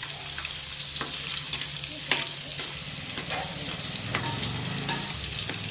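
Hot oil sizzling in a clay pot as halved green chillies fry, while a metal perforated ladle stirs them and clicks against the pot a few times, loudest about two seconds in.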